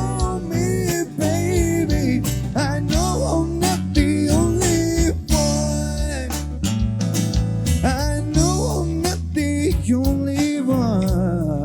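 Band music with guitar, steady bass notes and a melodic lead line bending up and down over it.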